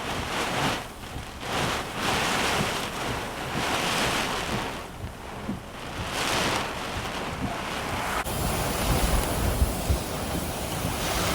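Strong gusty wind buffeting the microphone, rising and falling in surges. About eight seconds in the sound changes abruptly to a steadier low rumble.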